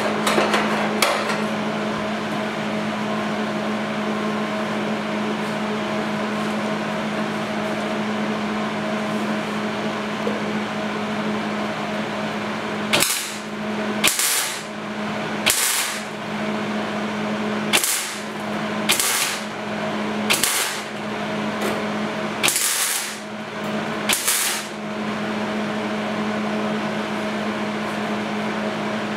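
MIG welder laying a row of tack welds on a steel body patch: about eight short bursts of welding crackle, each under a second, spread over roughly twelve seconds, over a steady hum.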